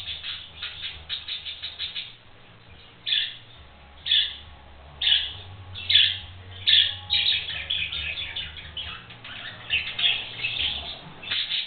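Young budgerigars chirping and chattering: a quick run of chirps, then single loud calls about once a second, then busier chatter again.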